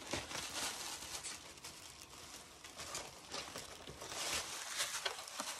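Plastic wig packaging and its cardboard insert rustling and crinkling as they are handled and pulled open, with scattered short crackles.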